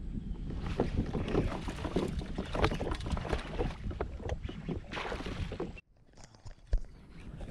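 Irregular knocks and rattles on a fishing kayak, gear and hull being handled or paddled. They break off briefly a little under six seconds in, and a few more knocks follow.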